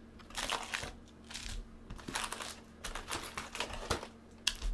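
Short, irregular rustles and light taps of cellophane wrap and cardboard as a sealed hobby box of baseball trading cards is opened.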